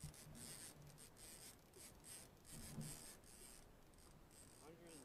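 Near silence: faint scratchy rustling in short irregular bursts, over a thin steady high-pitched whine.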